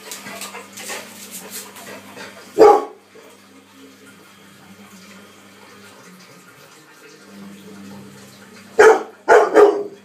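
Young Labrador retriever barking at a running washing machine: one bark about two and a half seconds in, then a quick run of three near the end. Under the barks runs the washing machine's steady low hum.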